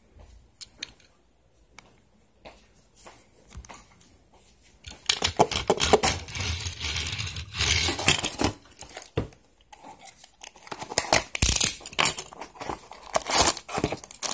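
A Tomica die-cast Mitsubishi Outlander PHEV toy car handled and pushed along a wooden tabletop. A few faint clicks at first, then from about five seconds in a rough rolling, scraping rustle with sharp clicks and knocks.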